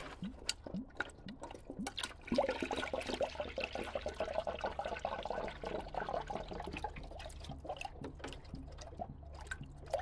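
Water poured from a plastic gallon jug into a spill-free coolant funnel, splashing into the water already in the funnel as the car's cooling system is filled. The pour starts about two seconds in and tapers off near the end.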